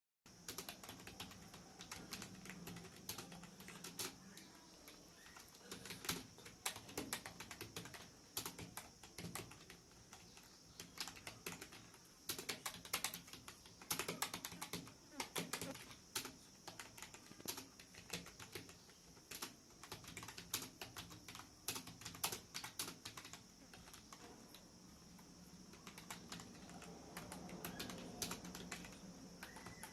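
Computer keyboard keys being typed on in fast, irregular runs of clicks, over a faint steady hum.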